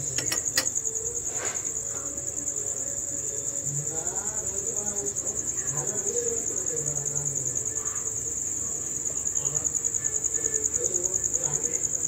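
Insect trilling, steady and high-pitched, a little louder from about nine seconds in. A few light clicks come within the first two seconds.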